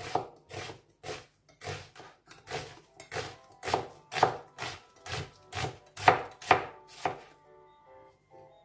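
Chef's knife slicing a red onion on a cutting board: even chops about two a second, each blade stroke knocking on the board. The chopping stops about seven seconds in.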